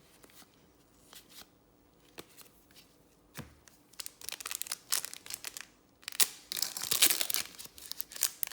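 Trading card pack wrapper being torn open and crinkled, after a few light ticks. The crackling comes in two stretches in the second half, the later one the loudest.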